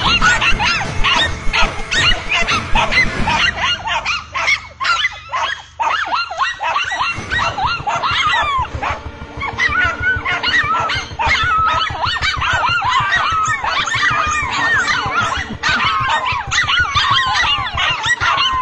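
Dogs barking and yelping in a fight, a dense run of short, high yelps and barks, thinning briefly about four to seven seconds in.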